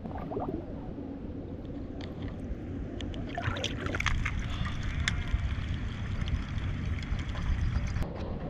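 Water sloshing and trickling as a squeeze water-filter pouch is filled in a stream and the water is squeezed through the filter, over the steady flow of the stream. A scatter of drips and small clicks comes in the middle.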